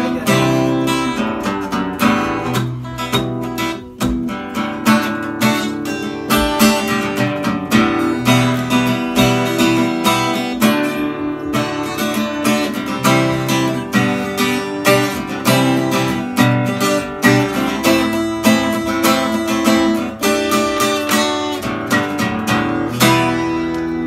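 Epiphone PR-4E acoustic-electric guitar strummed in a steady rhythm, its chords ringing with each stroke.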